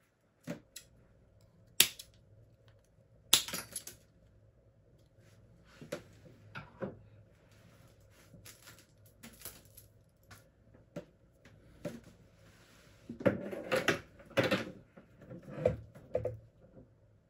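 Hands handling the scooter's electrical wires and cables: scattered sharp clicks and rattles of wire and fittings knocking against the stem, coming thickest in the last few seconds.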